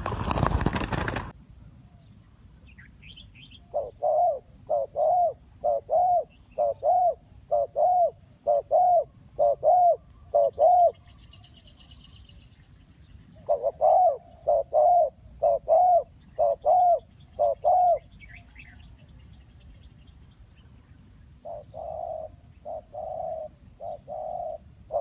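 Spotted dove cooing: runs of short, repeated low coos at about two a second, the last run softer, with faint higher chirps of other birds in between. A brief loud burst of noise comes right at the start.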